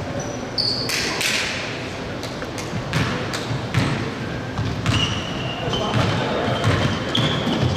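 Basketball game play in a gym: a ball bouncing on the court in repeated thuds, shoes squeaking briefly on the floor, and players' voices.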